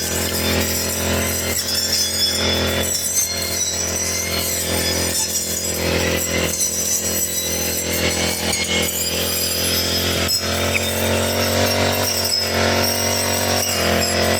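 Four-stroke brush cutter engine running steadily, its tone shifting slightly about ten seconds in.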